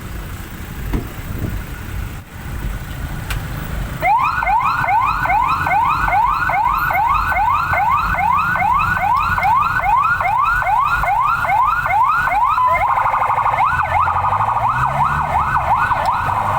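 An emergency vehicle siren comes on about four seconds in, over engine and traffic noise. It sweeps up in pitch in a fast repeating whoop, about two to three times a second, and switches to a quicker, denser warble near the end.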